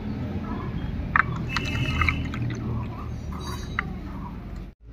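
Watermelon juice pouring from a stainless steel bowl into paper cups, a steady liquid pour. The sound briefly drops out near the end.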